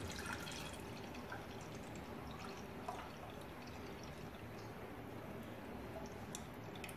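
Thick tamarind pulp poured from a plastic jug into a metal saucepan: a faint liquid pour and drip, the stream thinning to a trickle.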